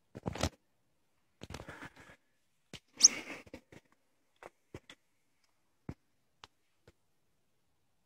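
Hiking boots stepping and scraping on clear lake ice: scattered clicks and short crunches. The loudest comes about three seconds in, with a brief high squeak.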